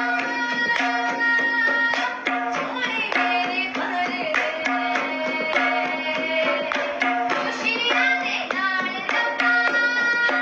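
Indian-style devotional worship music: tabla drumming a quick rhythm under a pitched melody.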